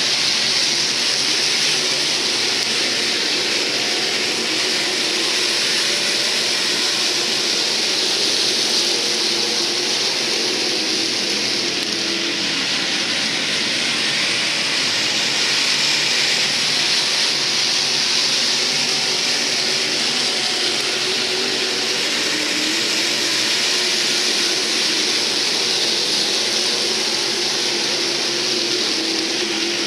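A pack of IMCA SportMod race cars running at racing speed, their V8 engines merging into a steady loud din, with faint engine pitches wavering up and down.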